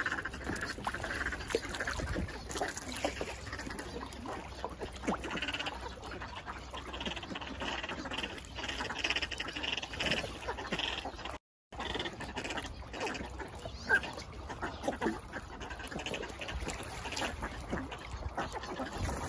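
A mixed flock of ducks, northern shovelers, northern pintails and common pochards among them, calling over and over in short calls. The sound drops out completely for a moment just past halfway.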